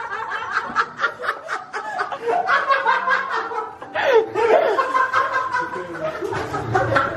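A group of people laughing in quick breathy bursts.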